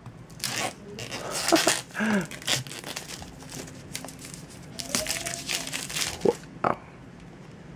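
Clear plastic shrink-wrap being torn and peeled off a phone's retail box, crinkling and crackling in irregular bursts.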